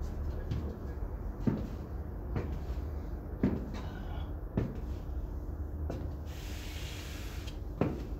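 High-heeled sandals clicking on a tiled floor, footsteps about one a second, over a steady low hum. A short hiss comes in about six seconds in and stops a second later.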